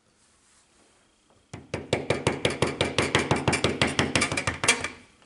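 Rapid metallic clicking and rattling, about nine sharp ticks a second, as a steel Madison strap is worked into place against a metal old-work box. It starts about a second and a half in and stops just before the end.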